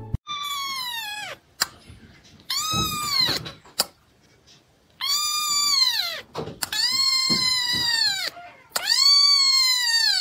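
Young kitten meowing: five high-pitched, drawn-out cries, each rising then falling in pitch.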